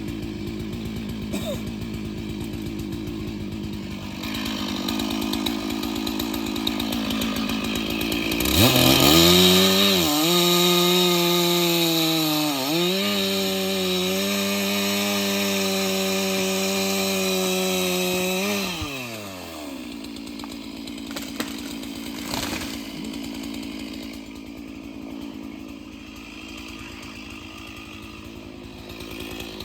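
Stihl chainsaw running at idle, then revved to full throttle about eight seconds in. It holds high speed for about ten seconds with its pitch dipping twice as it works in the wood, then drops back to idle.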